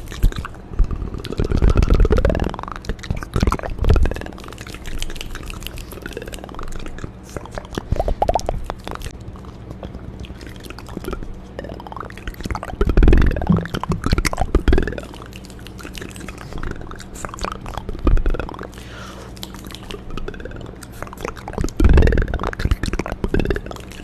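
Close-miked ASMR mouth sounds: a run of wet clicks and smacks, with louder bursts every few seconds.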